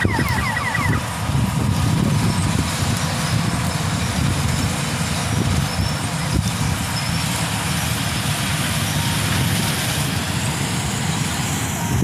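Sunshine 1100 combine harvester running steadily as it works the wheat field, heard from a distance as a low, even rumble with a wash of hiss over it.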